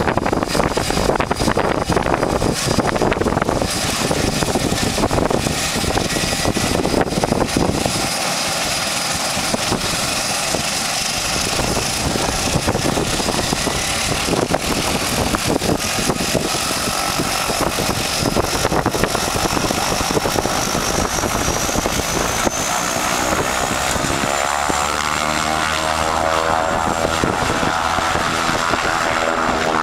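A PAC 750XL's turboprop engine running with its propeller turning: a steady propeller drone under a high turbine whine that rises somewhat about two-thirds in. In the last several seconds the sound shifts as the aircraft begins to taxi away.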